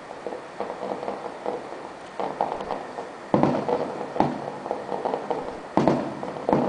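Aerial fireworks going off: strings of crackling pops in the first few seconds, then four sharper bangs in the second half, each dying away quickly.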